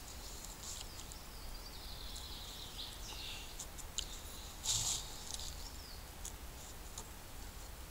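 Birds singing in the woods, with a few small clicks and one short rustle of a fabric bag being handled about five seconds in.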